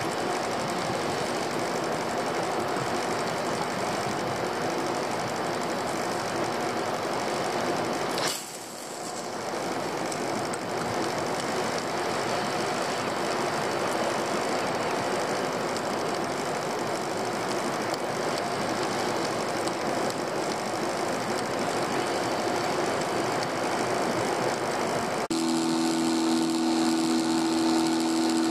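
Boat engine running steadily under a wash of wind and water noise, with a brief sharp click about eight seconds in. Near the end the sound changes abruptly to a steadier, more pitched engine note as the boat motors along, its wake churning.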